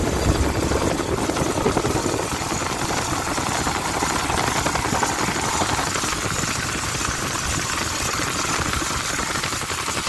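Yamaha Fazer 150's single-cylinder engine running steadily during a test after the chain was adjusted and the dried-out chain slider on the swingarm was coated with silicone; no chain slap against the swingarm stands out, the knock counted as cured.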